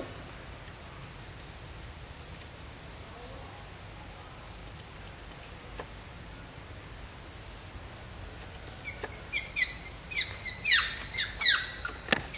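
Long-tailed macaque giving a rapid run of short, high-pitched squeals that fall in pitch, starting about nine seconds in, as one monkey mounts another.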